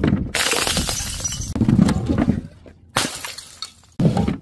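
Glass jars filled with coloured powder rolling off a ramp and shattering on paving stones: a run of glass crashes and crunches, cut off abruptly about three seconds in, then a shorter burst of breaking glass near the end.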